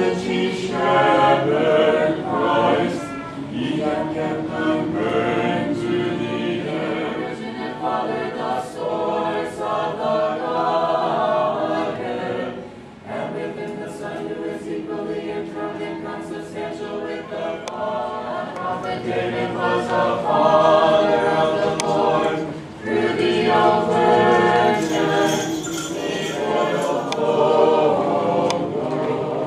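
Mixed a cappella choir of men's and women's voices singing Orthodox Vespers chant in long phrases, pausing briefly twice.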